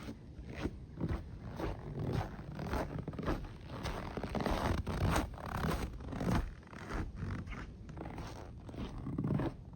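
A hiker's footsteps on a trail, about two steps a second, each step a short scraping rasp.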